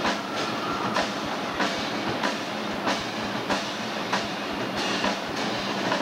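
Marching drumline playing a cadence: snare drums, bass drums and cymbals, with loud accented hits a little under twice a second over a steady stream of drum strokes.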